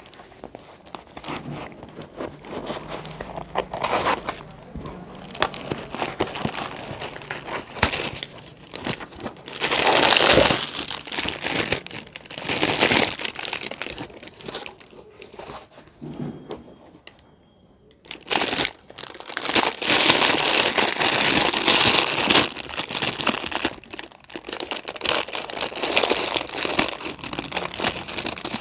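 Silver foil packet crinkling and rustling as it is handled and opened, in irregular bursts, with a brief lull a little past the middle.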